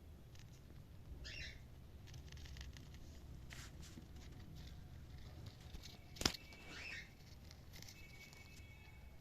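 Faint cockatiel chirps, a few short calls spread out, with soft clicks and taps and one sharp click about six seconds in.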